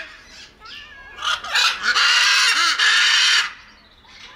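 Macaw parrot calling: soft chattering calls, then loud raspy screeches from about a second in that go on for about two seconds, dropping back to softer calls near the end.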